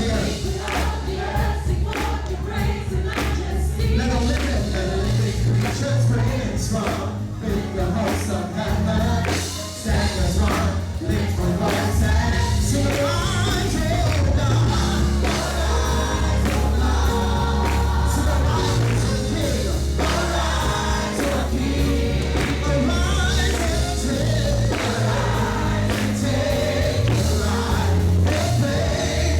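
Live gospel choir singing with a band of drums, bass guitar and keyboards, with a strong, steady bass line and regular drum hits.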